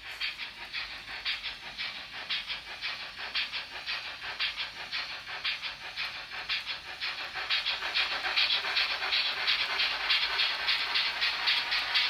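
Fleischmann N-gauge BR 044 steam locomotive's DCC sound decoder (Henning-Sound) playing steam exhaust chuffs through the model's small speaker, a quick, even beat. The chuffing grows louder about two-thirds of the way through.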